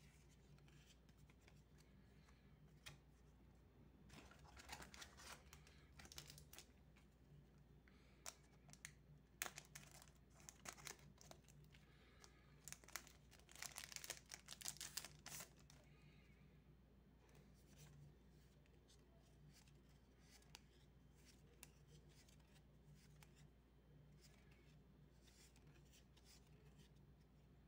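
Foil wrapper of a Magic: The Gathering booster pack crinkling and tearing as it is opened, amid rustling of handled cards. The crackling comes in bursts and is densest a little past halfway through.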